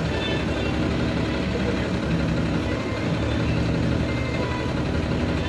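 Semi-truck's diesel engine idling steadily.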